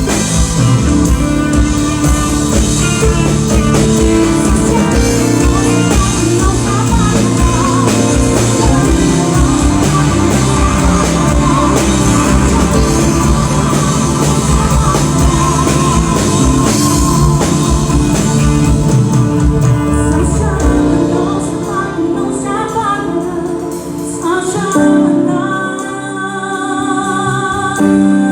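Band music with drum kit, bass and guitar playing at full volume. About three quarters of the way through, the drums and bass drop away, leaving a lighter passage of sustained keyboard-like tones and a wavering melody line.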